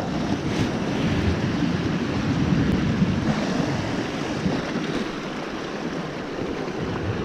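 Sea surf washing in steadily along the shore, with wind on the microphone.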